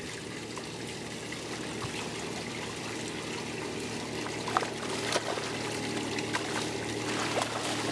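Water trickling and splashing over a steady low mechanical hum, with a few light knocks about halfway through.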